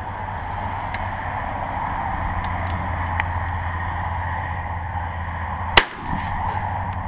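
A single shotgun shot about six seconds in, fired at a flying pigeon, over a steady low rumble.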